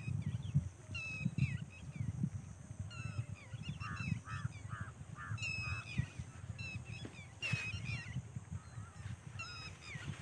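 Birds calling repeatedly in short chirping notes, with a quick run of about five notes near the middle, over a low, uneven rumble of wind on the microphone.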